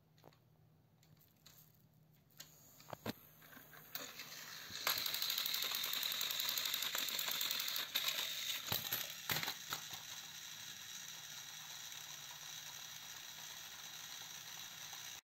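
Small electric motors and plastic gears of battery-powered toy trains whirring steadily with a fine rapid ticking, starting a few seconds in. A couple of sharp plastic clacks come about two-thirds of the way through as the trains tumble off the raised track, after which the whir carries on a little quieter with the wheels spinning freely.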